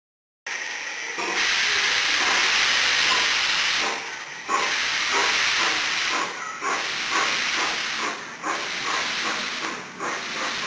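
Replica of the 1835 Adler steam locomotive venting steam with a loud, dense hiss. From about four seconds in the hiss breaks into a quick regular pulsing as the engine moves off.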